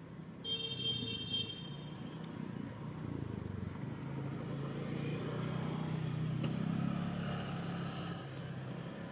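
A motor vehicle's engine passes, its low hum swelling to a peak about two-thirds of the way through and then easing off. Near the start there is a steady high-pitched tone lasting about a second and a half.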